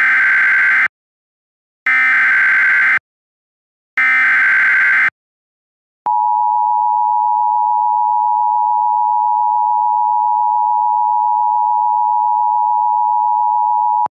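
Emergency Alert System SAME header: three roughly one-second bursts of screeching digital data tones, each separated by a second of silence. About six seconds in comes the EAS two-tone attention signal, 853 and 960 Hz sounded together and held steady for about eight seconds, which announces the flash flood warning message that follows.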